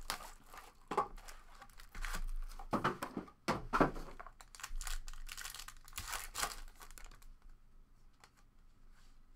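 Foil trading-card pack wrapper crinkling and tearing as a pack is ripped open, in irregular bursts, fading to quieter handling about seven seconds in.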